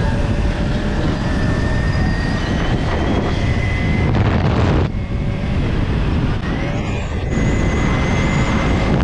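Motorcycle engine running while riding along the road at speed, with the sound dropping briefly about five seconds in and again after seven seconds.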